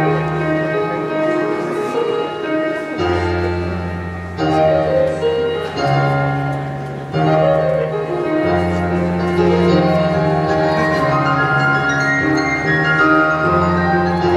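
Solo piano playing a slow piece: deep bass notes held and changed every couple of seconds under a melody in the middle and upper range, with a falling run of notes about six seconds in.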